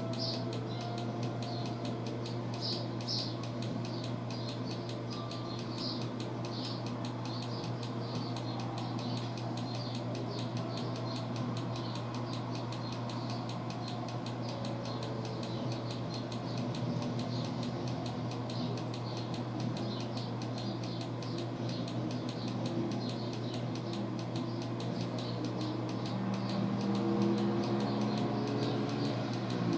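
Steady low hum under a constant hiss, with faint rapid high-pitched ticking or chirping throughout and a few faint held tones near the end.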